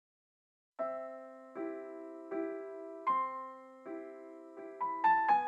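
Slow, gentle piano music. Sustained chords are struck about once every three-quarters of a second after a short silence, with a few quicker, higher notes near the end.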